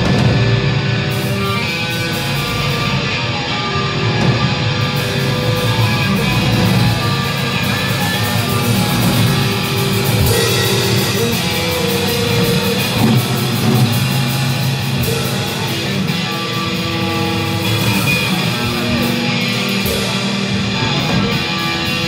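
Live rock band playing: electric guitar over a drum kit, with an even beat of cymbal strokes.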